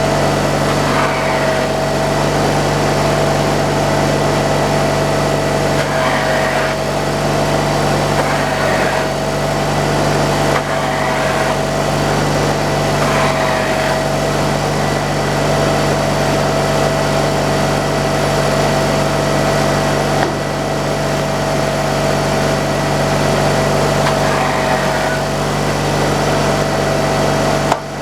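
Engine running steadily at constant speed, with a steady whine over it and a few brief swells of hissing noise every few seconds.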